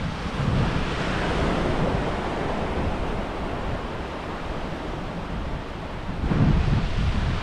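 Small sea waves breaking and washing up a sandy beach, with wind buffeting the microphone. A stronger gust comes through about six seconds in.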